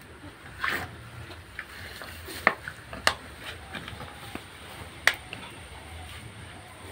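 Hand milking: a few sharp clicks and clinks at irregular intervals, the loudest about two and a half and five seconds in, with a short rushing sound about a second in, over low background noise.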